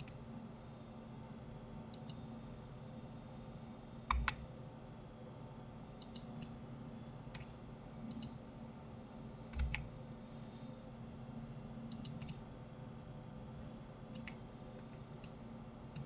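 Computer mouse and keyboard clicks: short clicks, often in pairs, every second or two, with two louder ones with a low thump about four and ten seconds in, over a faint steady hum.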